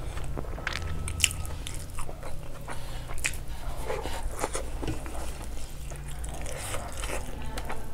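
Close-miked chewing and wet mouth clicks of someone eating rice and curry, mixed with the soft squish of fingers working rice on a metal plate, over a steady low hum.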